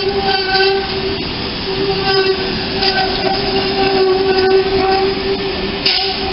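SEPTA Kawasaki LRV K-car trolley passing, with a steady high-pitched squeal from its wheels as it rounds the curve, the higher overtones fading in and out.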